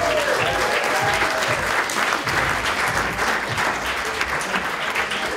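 Audience applauding, a dense clapping that thins out toward the end, with the last sung note of the song fading out at the start.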